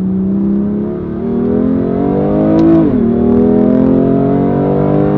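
BMW M2 Competition's twin-turbo 3.0-litre inline-six accelerating, heard from inside the cabin. Its pitch climbs, drops sharply about three seconds in as the dual-clutch gearbox makes a quick upshift, then climbs again.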